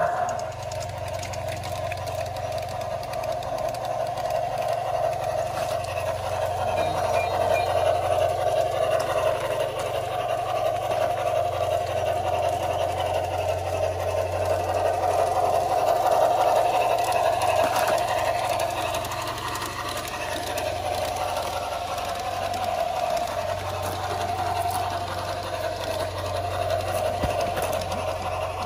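G-scale model locomotive running on garden-railway track: a steady electric motor and gear whine with a low hum and light wheel clicking over the rail joints, growing louder and fading as the train passes.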